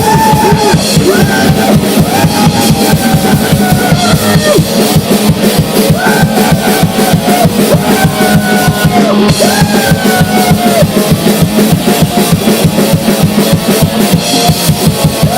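Grindcore/noise band playing loud and fast: rapid, relentless drumming under distorted noise, with pitched notes that keep bending up and down.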